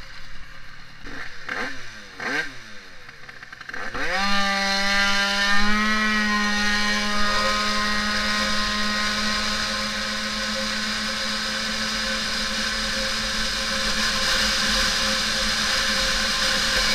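Tuned Yamaha Aerox two-stroke scooter engine. It gives a few short throttle blips, then about four seconds in it revs sharply up at full throttle and holds one steady high note while the automatic transmission carries it up to speed in a 0–100 km/h acceleration run.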